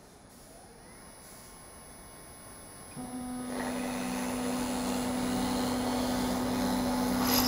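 Spindle motor of a CNC boring machine starting up with a steady hum about three seconds in. A drill bit then bores slowly down into a wood piece, adding a steady cutting noise, and a louder sharp burst comes at the very end.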